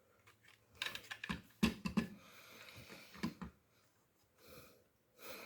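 Faint, irregular plastic clicks and light knocks from a headband magnifier being handled, its lens and headband parts moved. The clicks are loudest in a short cluster just under two seconds in.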